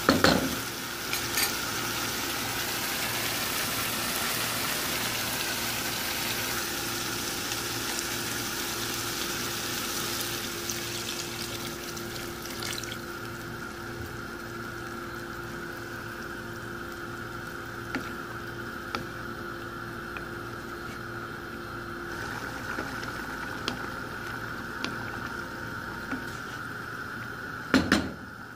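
Shrimp and tomato sauce cooking in a frying pan: a steady sizzle for roughly the first twelve seconds, then a quieter simmer with a few scattered pops. Near the end a wooden spoon stirs and knocks against the pan several times.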